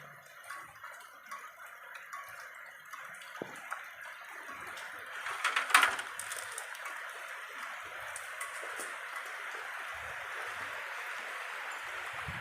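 Heavy rain falling in a steady hiss that thickens about four seconds in, with scattered drip-like ticks and a brief loud crackle near the middle.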